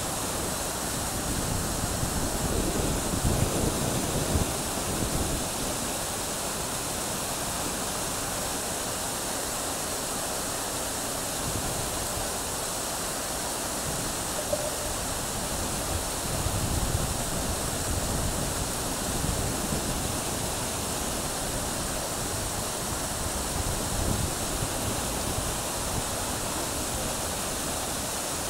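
Plaza fountain's rows of short vertical water jets splashing steadily into the pool: an even, continuous rush of falling water.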